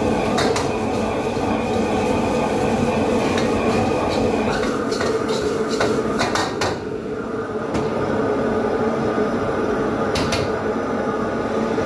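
Wok stir-frying on a commercial wok burner: a metal spatula and ladle clank and scrape against the wok several times over a steady rush of burner and exhaust-hood noise. The high hiss thins out a little past halfway.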